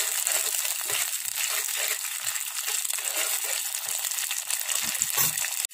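Ground onion paste sizzling in hot mustard oil in a kadai, with small scrapes and knocks of a steel spatula stirring it. The sizzle cuts off suddenly near the end.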